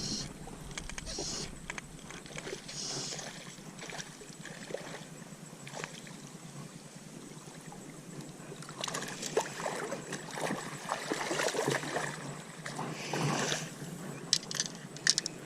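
Water sloshing and splashing, busier and louder for several seconds from about nine seconds in, with a few sharp clicks near the end.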